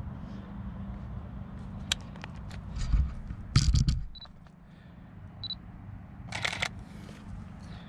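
Canon DSLR with a battery grip being handled and fired: clicks and knocks of handling, two short high autofocus-confirmation beeps, then a burst of shutter clicks near the end, over a steady low hum.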